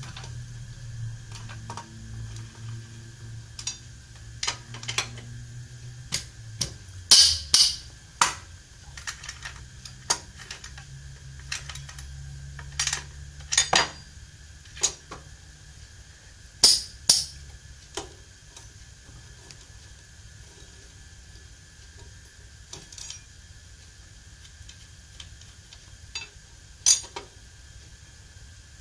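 Scattered sharp metal clinks and clicks of hand tools being handled and worked on the bolts of a scooter's CVT cover, some coming in quick pairs.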